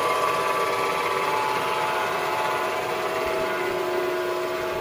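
Rollin Saw HS1418 horizontal band saw running with no blade fitted: its 230-volt three-phase Leeson motor and three-speed belt drive give a steady hum and whine of several constant tones.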